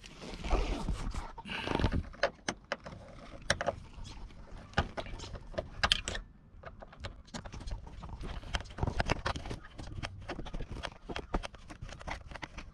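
A screwdriver turning a T20 Torx screw into a plastic car door card: irregular small clicks, scrapes and knocks, with rustling handling noise in the first couple of seconds.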